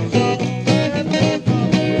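Acoustic guitar strumming chords in a steady rhythm, played live as instrumental accompaniment with no singing.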